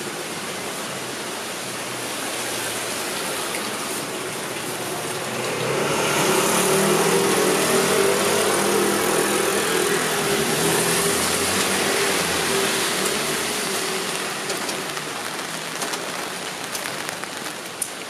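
Steady rain, with a motor vehicle passing on the wet street: its tyre hiss and engine swell about six seconds in and fade away over the next eight seconds or so.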